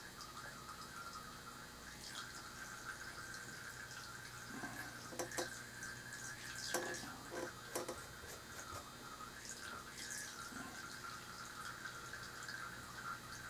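Faint room tone with a steady low hum. A few soft clicks and taps come about halfway through.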